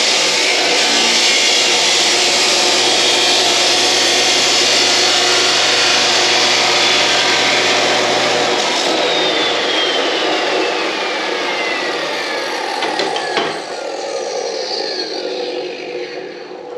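A power tool cutting intercooler tubing runs steadily, then is switched off about eight and a half seconds in, its whine falling in pitch as it winds down over the next few seconds. A few clicks follow as it stops.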